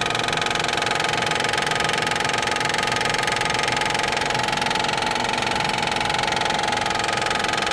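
Honda Accord V6 engine running with a steady, rapid knocking from the belt's hydraulic tensioner, which is bouncing and hitting the end of its travel: the tensioner is failing.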